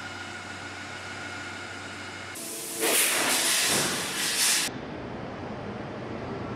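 Steady machine hum with a few fixed tones, then, about two and a half seconds in, a loud hiss of coolant spraying inside a CNC machine cutting a steam-turbine vane segment. The hiss stops abruptly a little after four and a half seconds, leaving quieter machine noise.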